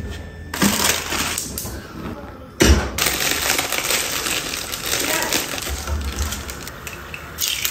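Plastic instant-noodle packet crinkling and rustling as it is handled and emptied into a pot, with a sharp sudden sound about two and a half seconds in.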